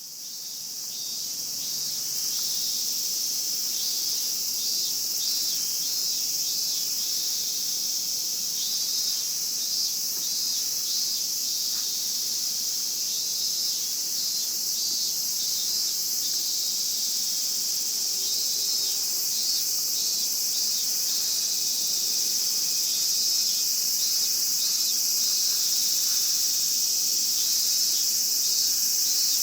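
Chorus of Japanese cicadas: a dense, steady high buzz that fades in over the first two seconds, with rhythmic pulsing calls from other cicadas beneath it.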